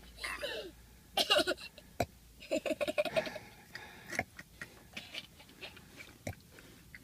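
A small child hiccuping: several short, sharp hiccups a second or two apart, some with a brief high voice sound.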